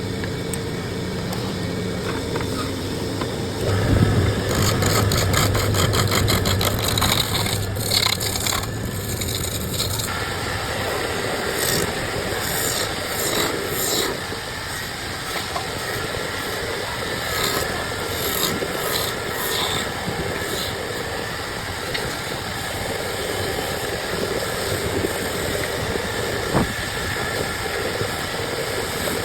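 Woodworking on a solid block of wood. A machine motor hums steadily with fast rhythmic cutting from about four to ten seconds in, followed by irregular scraping and shaving of the wood.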